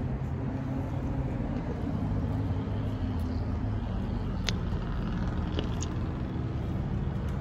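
Steady low hum of a vehicle engine running nearby, over traffic noise, with a few faint clicks about halfway through.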